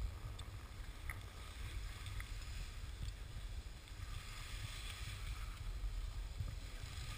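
Wind buffeting the camera's microphone as a steady low rumble, with faint scraping of skis on packed snow.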